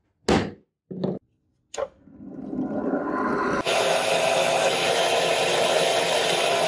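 Three dull knocks about a second apart as the metal strip is struck, then a bench drill press starting to run, rising over a second or so, and from about halfway in running steadily as its bit drills through the thin steel strip.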